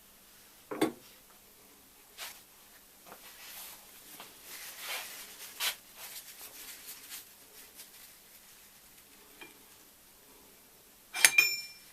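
Stainless steel fittings being handled: a knock about a second in, faint irregular crackling and scraping, then a sharp metal clink that rings briefly near the end.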